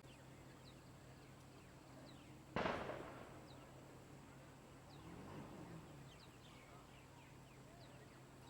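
A single sharp bang about two and a half seconds in, dying away over half a second, with small birds chirping and a faint low hum throughout.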